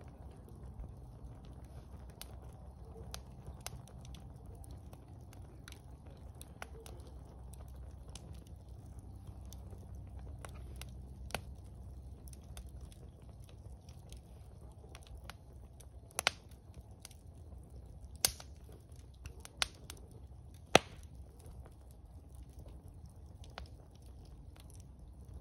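Wood campfire in a fire pit crackling, with scattered sharp pops and snaps over a low steady rumble; a few louder snaps come in the second half.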